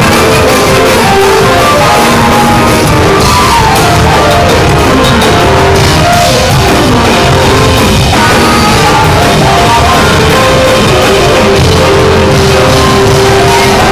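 A live band playing loudly: drum kit, electric bass, saxophone and keyboard together, with sustained melody notes over the drums.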